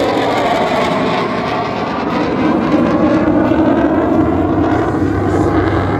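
F-16 fighter jet's engine, loud and continuous as the jet flies past, with a rushing noise whose pitch sweeps slowly up and down.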